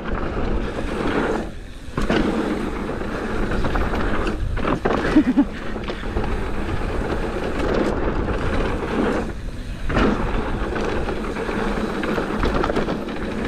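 Mountain bike riding on a dirt trail: wind buffeting the microphone over a low rumble of tyres on dirt and the bike's rattle, easing briefly three times, with a sharp knock about five seconds in.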